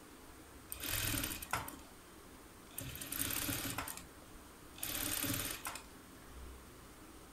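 Sewing machine stitching lace onto velvet in three short runs, each about a second long, with brief pauses between them.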